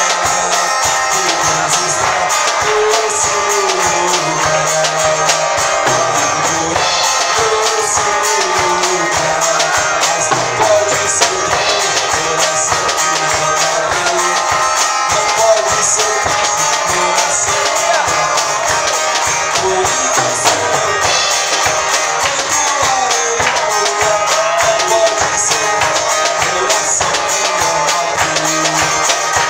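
Acoustic guitar strummed in a steady rhythm under a man singing a gospel song into a microphone, with a jingling percussion beat.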